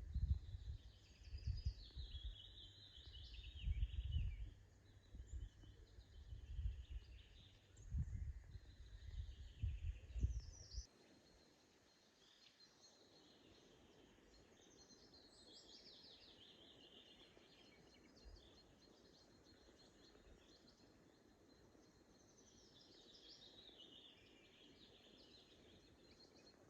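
Several wild birds singing, a mix of chirps and quick trills. A low gusty rumble runs underneath for the first eleven seconds or so and cuts off suddenly, leaving a soft steady hiss under the song.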